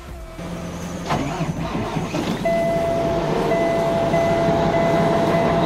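Peterbilt semi truck's diesel engine being cold-started at about −20 with its block heater plugged in: it is cranked, catches about two and a half seconds in, and settles into a louder steady run. A steady warning buzzer, the low primary air pressure alarm, sounds with short breaks once it is running.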